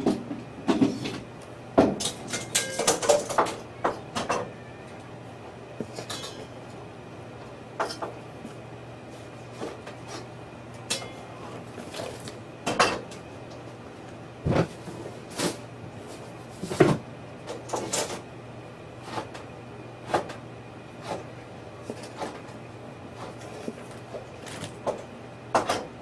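Scattered light taps and knocks as a cat paws at hard crab shells in a plastic-lined box, with a quick flurry of taps and rustles about two to four seconds in. A faint steady hum lies underneath.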